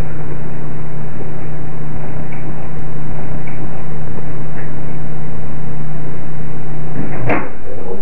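Microwave oven running with a steady low hum, heard through a security camera's microphone over constant hiss; about seven seconds in a sharp click of the door being opened and the hum cuts off.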